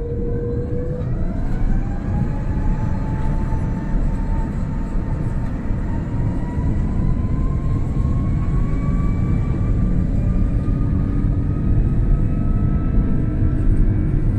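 Airbus A330-300's Rolls-Royce Trent 700 turbofans building to take-off thrust, heard inside the cabin over the wing: a deep rumble with a whine that climbs steadily in pitch.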